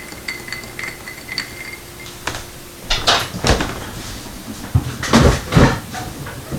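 A spoon stirring ice in a glass, light clinks with a ringing glass tone for the first couple of seconds. From about three seconds in come several louder knocks and bumps of things being handled and set down.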